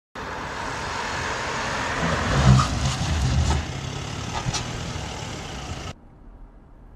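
Audi saloon driving on a test track during an automatic emergency braking test: steady tyre and wind noise with a low rumble that swells about two and a half seconds in, a few faint clicks, then a sharp drop in level about six seconds in.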